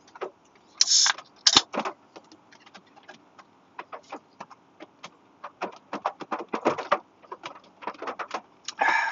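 A Diet Pepsi aluminium can being pulled open: a short hiss of escaping gas about a second in, then a sharp click of the tab. After it come scattered light ticks and taps.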